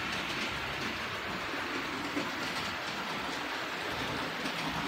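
OO gauge model train running along the layout's track, a steady even whirr of small wheels and motor on the rails.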